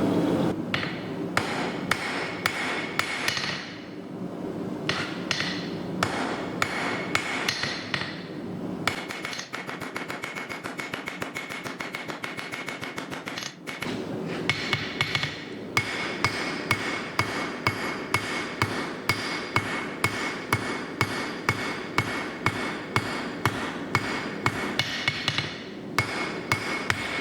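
Hand hammer striking a 3/8-inch steel bar on an anvil in a steady rhythm of about two blows a second, with a few brief pauses, as the end of the bar is forged out; each blow rings briefly.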